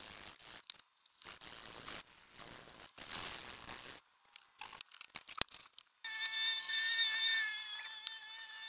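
Sandpaper on a round hand-held sanding pad being rubbed across the edge of a hardwood stool top in scratchy strokes, each about a second long with short gaps between them, followed by a few sharp clicks. About six seconds in, a steady high whine with several overtones starts and holds.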